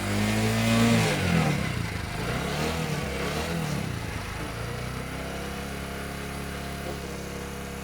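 Freshly rebuilt Bajaj Discover 125 single-cylinder four-stroke motorcycle engine, revved up and down a few times and then settling to a steady idle. It runs smoothly, with the original engine sound restored after the overhaul.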